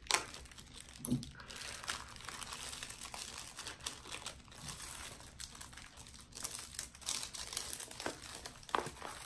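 Clear plastic packaging crinkling and rustling as it is cut open with small scissors and handled, with a few sharp snips and clicks near the start. A folded diamond painting canvas is then pulled out of the bag and unfolded.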